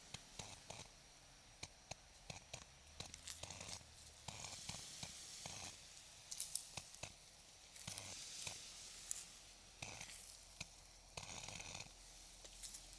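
Quiet close-up handling noise: scattered small clicks and knocks, with a few brief bursts of tearing, rustling sounds.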